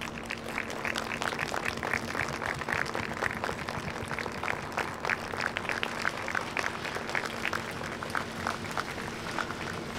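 Audience applauding: many separate hand claps overlapping irregularly, thinning out near the end.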